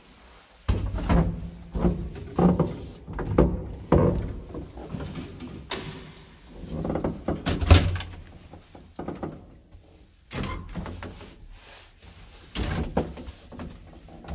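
Doors of an old Wertheim passenger lift with a wooden cabin being worked: a series of clunks, knocks and latch clicks, the loudest about two-thirds of the way through.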